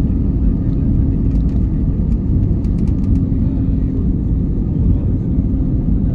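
Airliner cabin noise: a steady low rumble from the engines and the plane moving on the ground, with a faint steady hum and a few faint clicks about one to three seconds in.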